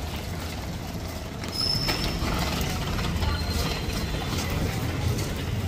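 A child's bicycle rolling along, its freewheel ticking and parts rattling over a low rumble; the ticking starts about two seconds in.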